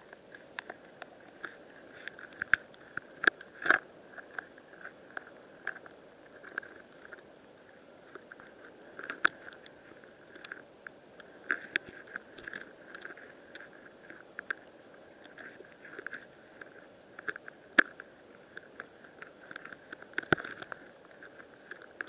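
Underwater sound picked up through a submerged camera: irregular sharp clicks and crackling over a faint steady hiss, with a few louder snaps scattered through.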